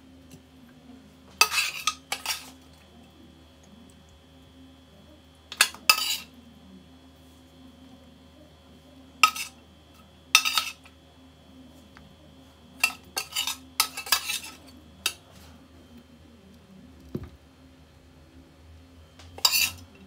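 A metal spoon clinking and scraping against a pan and a ceramic plate while stir-fry is spooned onto the plate, in short bursts every few seconds over a low steady hum.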